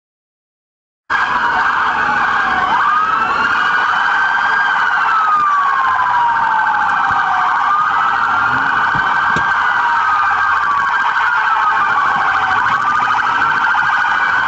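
Police car siren wailing, its pitch rising and falling in slow sweeps several seconds long, cutting in about a second in after silence.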